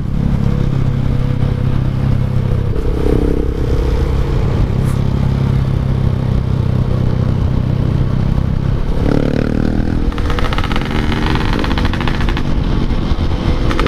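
Yamaha RX-King 135 cc two-stroke single-cylinder engine on a "packing power" exhaust, heard from the moving motorcycle: a steady running note, then about nine seconds in the pitch changes as it revs and shifts.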